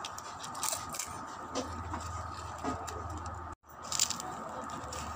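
Clear plastic bag crinkling as fingers rummage through the chicharon (pork rinds) inside, in scattered short crackles and scrapes. The sound cuts out completely for a moment about three and a half seconds in.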